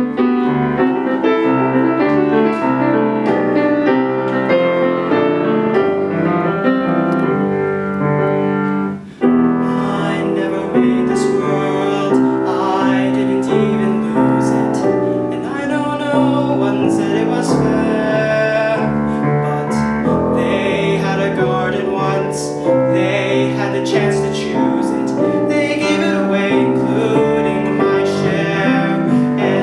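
Piano accompaniment playing alone, joined about nine seconds in by a young man singing a musical-theatre solo over it.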